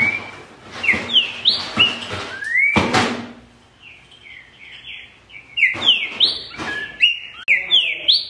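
Green-winged saltator (trinca-ferro) singing loud whistled phrases of short slurred notes that rise and fall, in two bursts with a short lull in between. A brief loud rush of noise cuts in about three seconds in.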